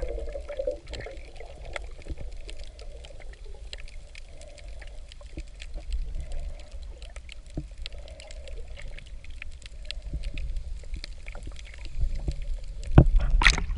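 Underwater sound heard through a camera housing: a low muffled rumble of moving water with scattered faint clicks. It grows louder about twelve seconds in, with a sharp rush of water near the end.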